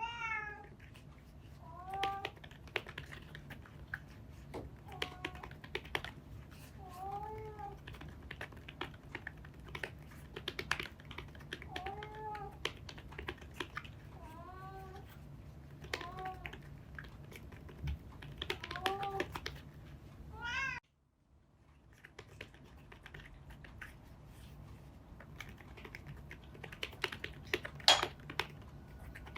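A cat meowing over and over, about one short call every two seconds, while keys are typed on an Apple Magic Keyboard, a scissor-switch keyboard, in a steady patter of clicks. After a brief dropout about two-thirds in, the meowing stops and only the typing goes on, with one louder click near the end.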